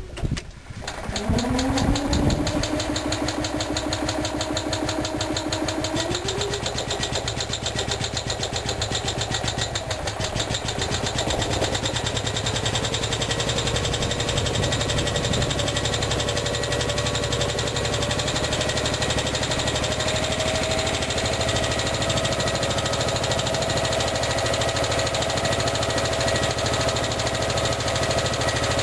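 Small generator engine running on wood-gas (syngas) from a wood-pellet gasifier: it catches and speeds up about a second in, then settles into a steady run.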